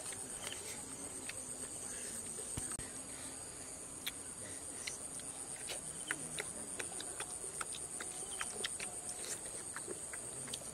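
Steady high-pitched drone of forest insects, with scattered small clicks and smacks from people chewing chicken.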